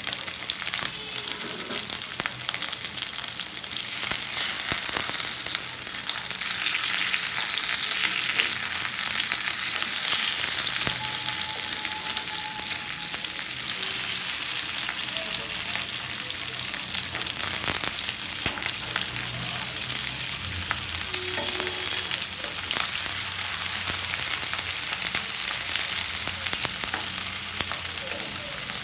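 Pieces of turmeric-coated hilsa fish shallow-frying in hot oil in a pan: a steady sizzle full of small crackles, with a spatula now and then scraping the pan as the pieces are turned.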